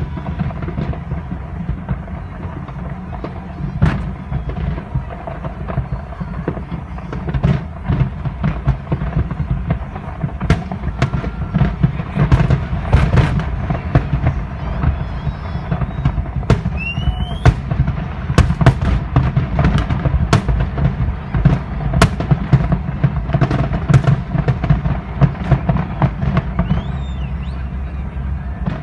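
Fireworks bursting in a continuous barrage, the bangs coming thick and fast after about ten seconds, over a steady low rumble.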